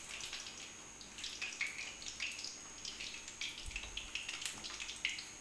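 Pakoras in a gram-flour and egg batter deep-frying in hot ghee in a karahi: a steady sizzle with scattered small crackles.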